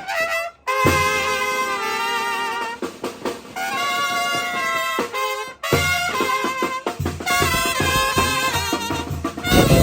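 Village brass band (banda de viento) playing: trumpets and other horns carry sustained melodic phrases over bass drum beats, with brief breaks between phrases near the start and about halfway through.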